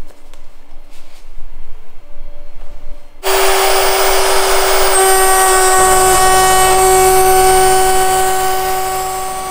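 SmartBench CNC router's spindle starting with a sudden loud, steady whine about three seconds in, running the 3 mm ball-nose cutter. A couple of seconds later more tones and a low rumble join it, and the sound eases off near the end.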